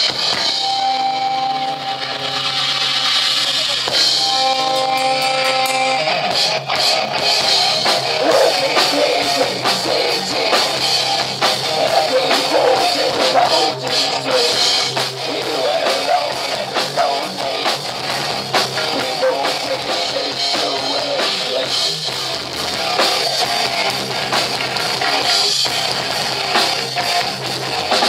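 Rock band playing live in an instrumental passage with no singing. Held melodic notes carry the first six seconds or so, then the full band comes in with drums and cymbals hitting steadily under the guitar.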